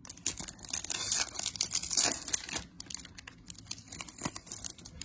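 Wrapper of a 2020 Topps Chrome trading-card pack being torn open and crinkled, most intensely in the first two and a half seconds, then lighter crinkling.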